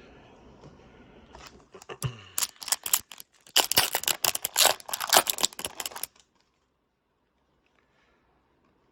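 Trading cards and their packaging being handled: a quick run of crisp clicks and rustles that cuts off suddenly about six seconds in.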